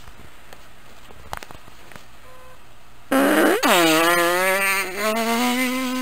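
A long, loud, buzzy fart starts suddenly about halfway through. Its pitch drops sharply, then recovers and wavers for over three seconds. Before it there is only quiet room noise with a couple of faint knocks.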